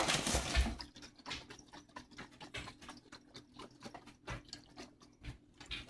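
Irregular light taps and clicks with faint liquid sounds: sugar water in a container being handled.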